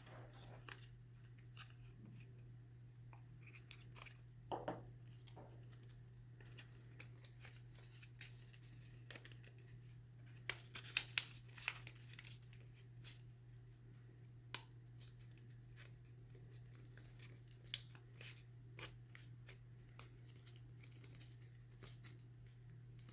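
Paper strips being handled and tucked into one another: scattered soft rustles and light taps, busiest about ten to twelve seconds in, over a low steady hum.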